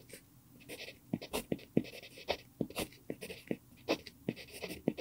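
Pentel PG5 mechanical pencil with an mpingo wood barrel writing Korean characters on lined notebook paper: short scratching strokes and sharp little taps of the lead on the page, in an uneven rhythm.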